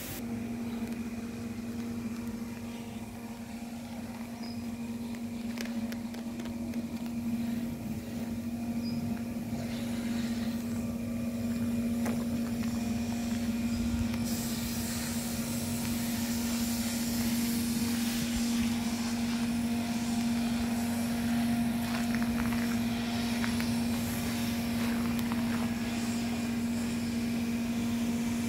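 A steady mechanical hum of constant pitch, like a running motor, with a hiss joining in about fourteen seconds in.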